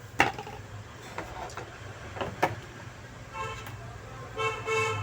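A few light clicks and taps, then a steady horn-like tone sounding in three short blasts in the second half.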